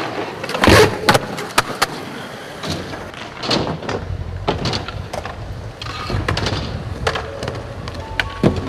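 Skateboards on concrete: wheels rolling, with repeated sharp clacks of boards popping, landing and hitting the ground, the loudest about three-quarters of a second in.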